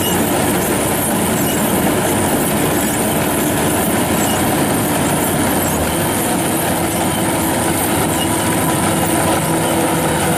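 Kubota DC-105X combine harvester running steadily under load while it cuts and threshes rice: a loud, unbroken mechanical drone of the engine and threshing works.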